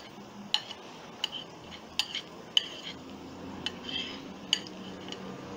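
Irregular sharp clicks and taps of a utensil against a plate and frying pan as chopped garlic is scraped from the plate into the pan, about ten in all.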